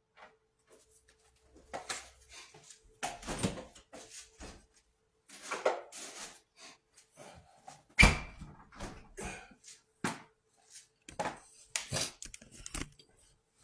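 Irregular knocks, clatter and rustling from hands working at a kitchen counter, with one sharp, loud knock about eight seconds in, then the rubbing and knocking of a phone being picked up and handled near the end.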